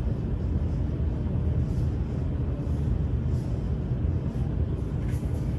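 A steady low rumble, with a few faint scratches of a dry-erase marker writing on a whiteboard.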